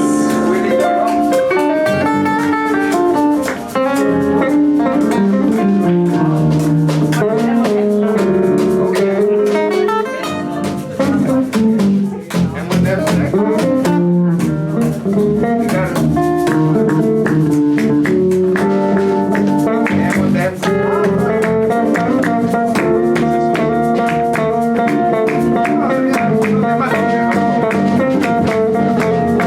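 Live band playing loud, steady music, with guitar over a drum kit.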